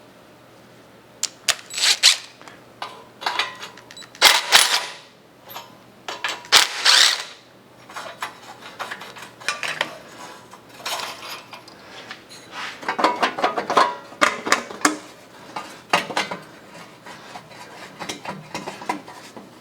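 Hand tools clinking and clicking on metal as the bolts holding a garden-tractor muffler are worked loose: irregular sharp metallic clicks, with a quick run of them about two-thirds of the way through.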